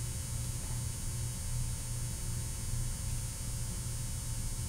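Steady low electrical hum with a constant hiss over it; no distinct sounds stand out.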